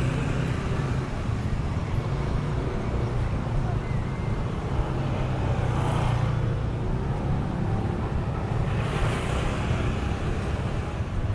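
City street traffic: a steady rumble of engines, with vehicles passing about six and nine seconds in.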